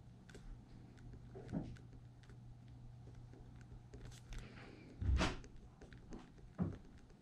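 Ballpoint pen writing on paper laid on a wooden table: faint scratching and small clicks of the pen, with two dull knocks on the table about five and six and a half seconds in.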